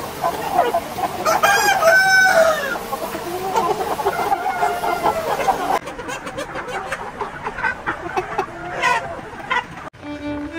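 Chickens clucking, with a rooster crowing about a second and a half in; later come quieter, shorter calls.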